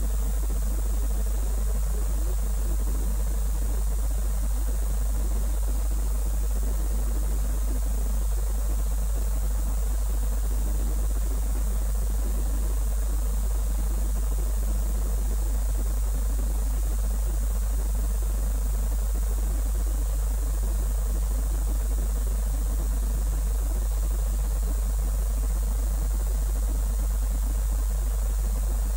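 Steady low electrical hum under a constant hiss, with no distinct event.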